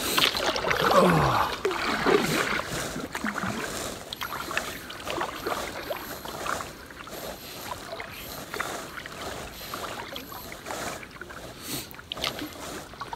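A kayak being moved through the water: irregular splashing and sloshing of water along the hull, with small knocks against the boat, busiest in the first couple of seconds.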